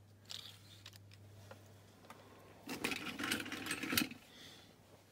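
Small die-cast toy vehicles being handled and set down on a mat: a few faint clicks, then about a second and a half of rattling and clinking near the middle.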